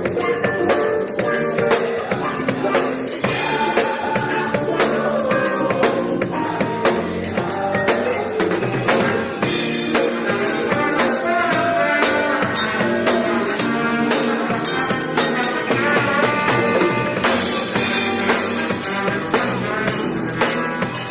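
Church praise band playing a gospel song with a full drum kit and tambourine keeping a steady beat.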